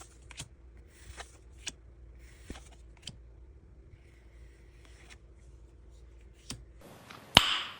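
Pokémon trading cards being slid and flipped one by one: soft card swishes and light clicks, then one sharp, louder snap near the end.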